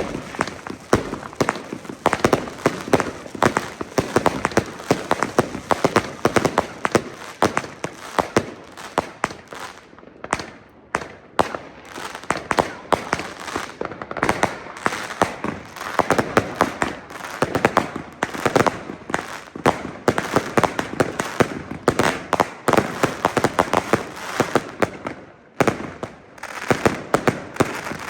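Street fireworks and firecrackers going off continuously, a dense, irregular barrage of bangs and crackling from many sources at once, with brief lulls only a couple of times.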